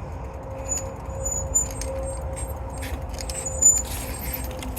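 Walking on a muddy bank: scattered footfalls and gear handling, with small metal items clinking and jingling. A low rumble and a faint steady hum lie underneath.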